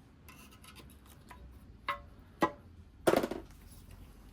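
A tool prying under the edge of an intercooler brick in a supercharger lid: scattered light metal clicks, a sharper click about two and a half seconds in, and a louder knock with a brief ring about three seconds in.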